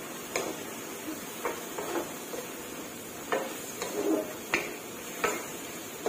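Wooden spatula knocking and scraping against a wok while stirring chicken giblets. There are about eight sharp knocks at an uneven pace, over a faint steady hiss from the pan.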